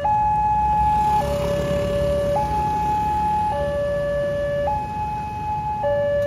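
Railway level-crossing warning siren sounding a two-tone hi-lo signal, stepping between a higher and a lower tone about every second, warning that the crossing barrier is closing. Low traffic engine noise runs underneath.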